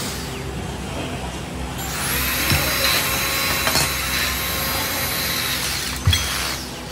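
A small corded handheld power tool spinning up about two seconds in, running with a steady hiss and a thin high whine, then winding down near the end. A single knock just before it stops.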